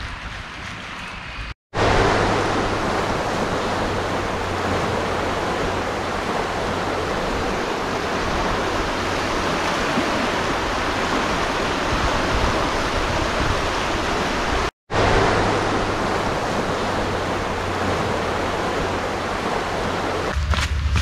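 The Kern River in flood, running high and fast: a loud, steady rush of water that begins about two seconds in, cuts out for a moment two thirds of the way through, and then carries on.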